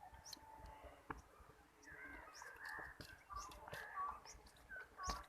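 Faint, distant voices talking, with a few light knocks.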